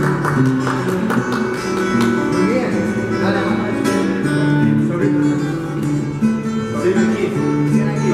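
Acoustic guitar played live, with chords strummed in a steady rhythm.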